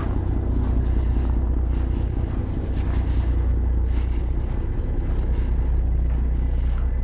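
Semi truck's diesel engine idling steadily, a constant low hum.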